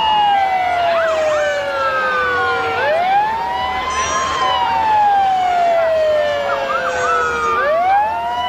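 Police car sirens wailing, several at once. The main tone sweeps up quickly and falls slowly, rising again about three seconds in and again near the end.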